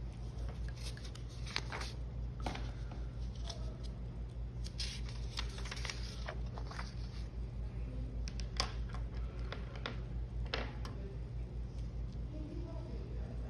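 Sheets of paper being handled on a desk: a drawing sheet lifted and turned over, with a string of short rustles and taps, over a steady low hum.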